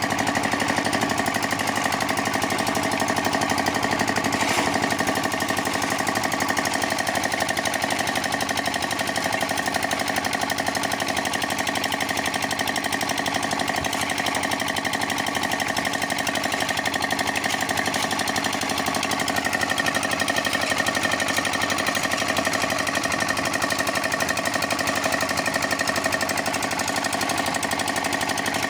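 Concrete mixer running steadily, a loud, even, fast-pulsing machine noise that holds unchanged throughout.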